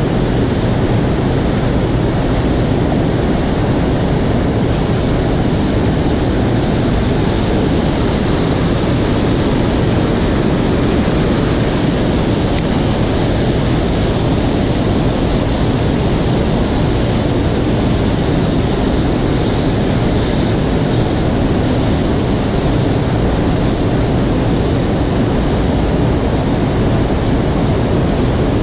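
Steady rushing wind buffeting the camera microphone, loud and even throughout, with no distinct events.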